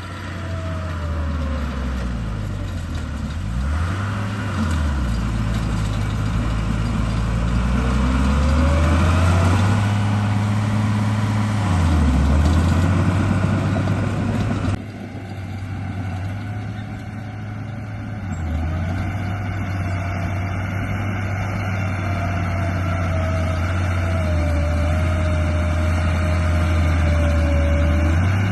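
Truck engine sound, idling and revving down and up several times, with a higher whine that rises and falls along with it. The sound changes abruptly about halfway through.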